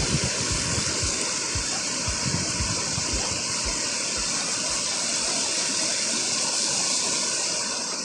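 Steady rushing of river water over shallow rocky rapids, with low thumps about twice a second in the first half that die away.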